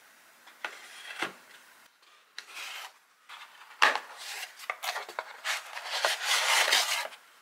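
Kraft cardboard box handled and opened by hand: cardboard rubbing and scraping, with a couple of sharp taps, and a longer stretch of scraping near the end as a ceramic plate is slid out of the box.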